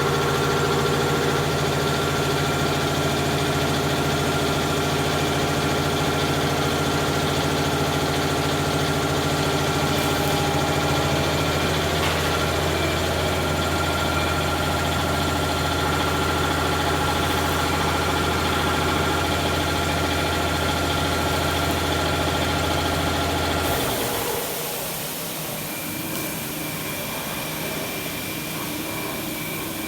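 Electric motors of a 3000 mm knife grinder for veneer peeling knives running with a steady hum made of several tones. Near the end the deep part of the hum stops and the level drops, leaving a quieter, higher machine sound running.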